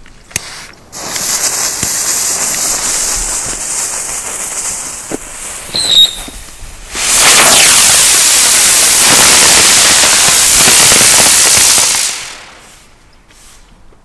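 Two Xplode Smoke Bird winged smoke fireworks hissing as they burn: one hissing from about a second in, a brief high chirp near six seconds, then a second, louder hiss from about seven seconds in that dies away near twelve seconds.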